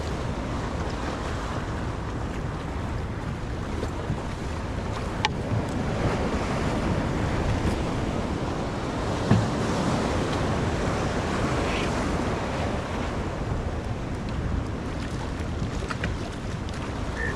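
Wind buffeting the microphone over washing waves, a steady rush heaviest in the low end. A sharp click comes about five seconds in and a short knock about nine seconds in.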